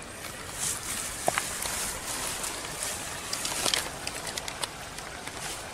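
Water sloshing and trickling, with scattered light clicks.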